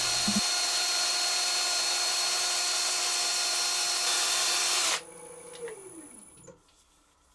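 Cordless drill running a sanding pad against a burl-and-resin knife handle that spins on the lathe, a steady power-sanding whirr. About five seconds in the sanding stops abruptly, and a falling hum follows as the machine spins down.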